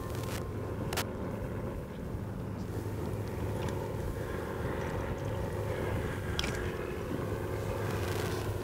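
Motorboat engine idling with a steady low hum, and a couple of light clicks, one about a second in and one past six seconds.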